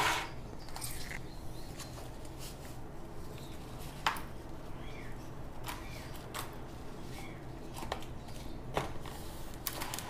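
Hands squeezing and tapping a thin plastic flowerpot to loosen the root ball: scattered plastic clicks and knocks, the sharpest about four seconds in, as the soil and roots slide out of the pot.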